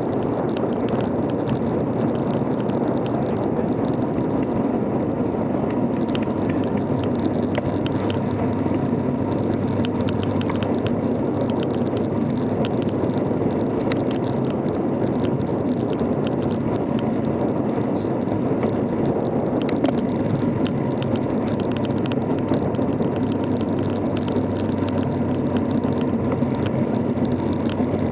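Steady rushing wind and tyre noise on a bicycle-mounted camera's microphone while riding on asphalt, with scattered small ticks and rattles throughout.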